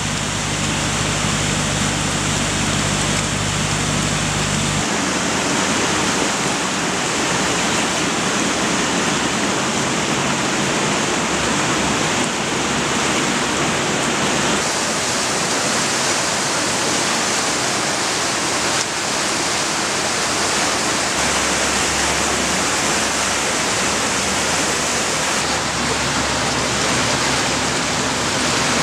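Steady rushing of fast-flowing water, loud and unbroken. A low steady hum lies under it and stops about five seconds in.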